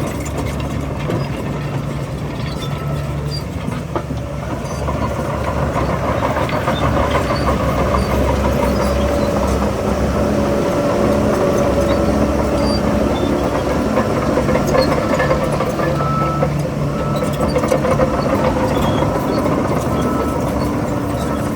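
Heavy diesel engine of earthmoving machinery working, its note shifting with load, with a sharp clank about four seconds in and scattered small metallic ticks.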